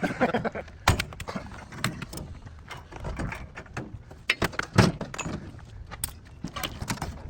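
A heavy refrigerator being moved by hand: irregular knocks, clunks and rattles, a few sharper bangs about a second in and near five seconds in.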